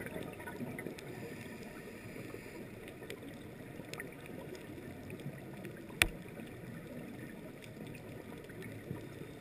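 Underwater ambience on a coral reef: a steady low hiss with scattered faint clicks, and one sharp click about six seconds in.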